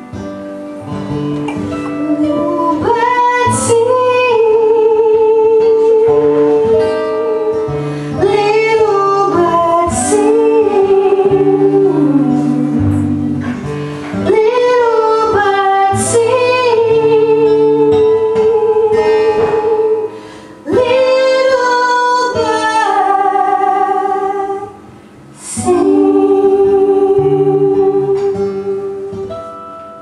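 A woman singing a slow song live, holding long notes with vibrato, accompanied by her own acoustic guitar.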